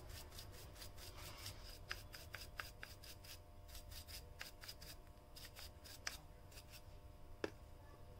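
Faint rubbing and scattered small clicks of a Wahl Beret trimmer's blade being handled and cleaned of hair, with a few sharper ticks.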